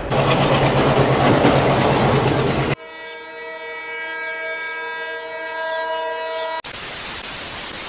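Loud rumbling train noise, then about three seconds in a cut to a locomotive horn sounding one long, steady blast of several notes at once, then a cut back to loud train running noise near the end.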